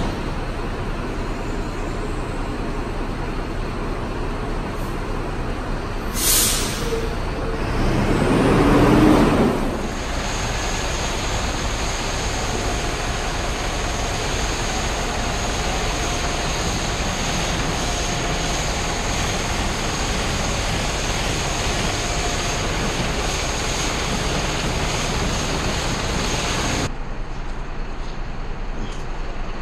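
A single-decker bus running in a depot, with a short air-brake hiss about six seconds in and a louder swelling rush a couple of seconds later. Then a jet wash sprays the back of the bus with a steady high whine over the hiss of the spray, and it cuts off abruptly near the end.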